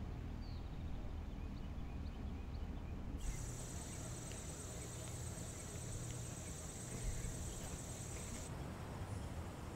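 Quiet ambience with a steady low rumble and a few faint chirps. About three seconds in, a steady high-pitched insect trill starts and cuts off abruptly about a second before the end.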